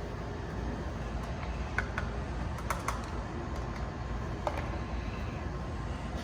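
A handful of short, sharp light clicks as small hose fittings and gun parts are handled and fitted, over a steady low background rumble.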